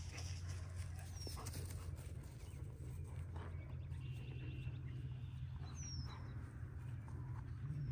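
Faint dog sounds over a steady low hum, with a few short, high chirps.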